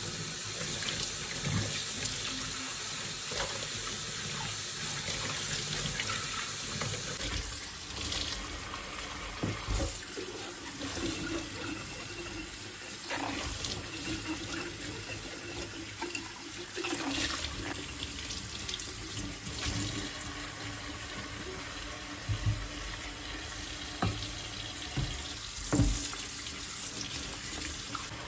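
Kitchen tap running steadily into a sink, with a few short knocks and clinks of things handled in the sink.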